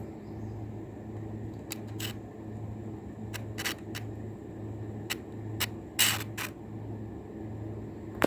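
Machete blade drawn against a cheap handheld sharpener: about ten short, irregular scraping strokes, the longest and loudest about six seconds in, over a steady low hum.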